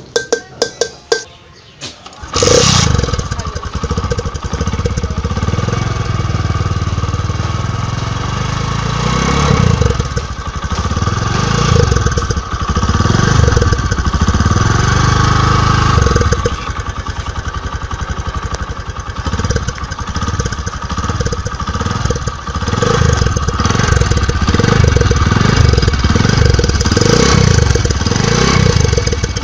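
A few light clinks, then about two seconds in a loud motorbike engine sound starts and runs on, rising and falling again and again like revving.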